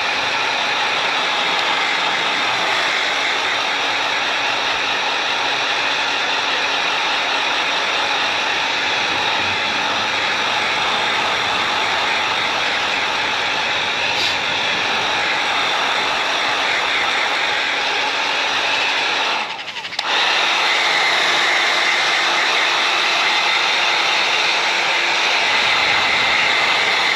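Electric hot air gun running with a steady blowing noise, warming a cold aerosol can so that it will spray. It cuts out briefly about twenty seconds in, then runs again with a faint added hum.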